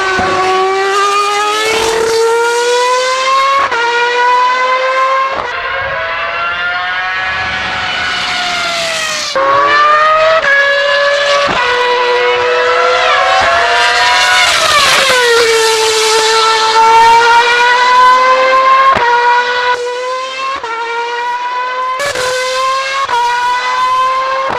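BMW Sauber F1.06 Formula One car's 2.4-litre V8 running at high revs. Its pitch climbs and steps repeatedly with quick gear changes, sags for a couple of seconds in the middle, then climbs again.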